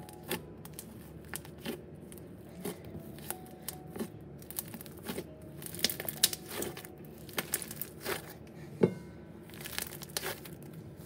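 Slime being squished and poked, giving irregular crackling pops and clicks that come thicker and louder in the second half, over faint background music.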